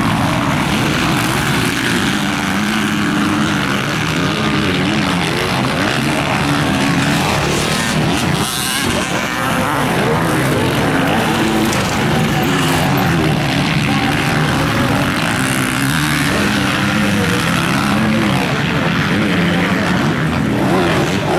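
Several motocross bikes racing, their engines overlapping and revving up and down as they accelerate and shift through the corners.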